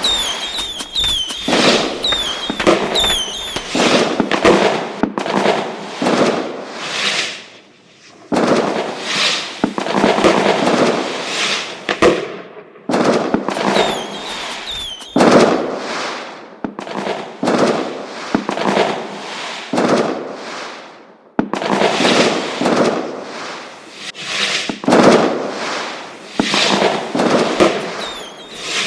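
Fireworks display: a dense, loud run of bangs and crackling, with short whistling shrieks in the first few seconds. The barrage dips briefly twice, about a third of the way in and again about two-thirds of the way in.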